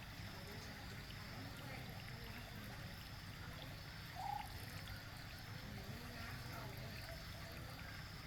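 Small garden-pond waterfall trickling steadily over rocks. A brief high chirp sounds about four seconds in.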